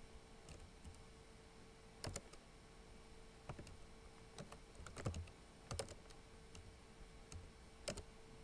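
Computer keyboard typing: scattered key clicks, with a few louder keystrokes about two, five, six and eight seconds in, over a faint steady hum.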